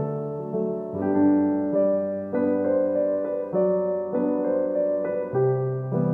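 Background piano music: a slow melody of sustained notes and chords.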